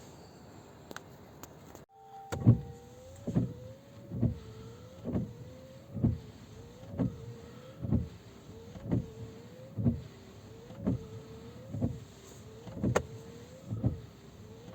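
Haval F7 windshield wipers switched on about two seconds in and sweeping steadily. A wiper-motor whine rises and falls with each stroke, and there is a knock at each reversal, roughly one a second.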